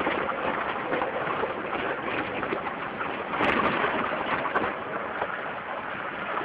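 Jeep Wrangler driving off-road: a steady rough rumble with a dense crackle and rattle, the vehicle running over uneven, stony ground.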